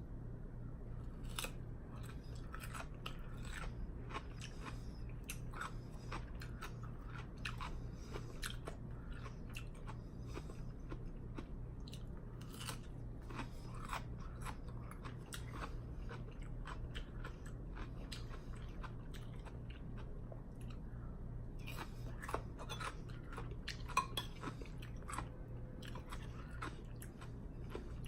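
Close-miked chewing and biting of wonton soup, with frequent small wet clicks and crunches from the mouth throughout.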